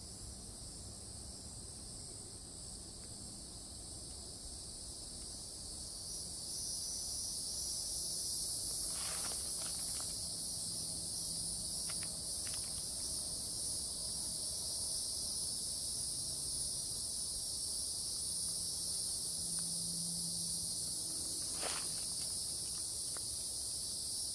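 A steady, high-pitched chorus of insects droning in the woods, growing louder about six seconds in, with a few faint clicks.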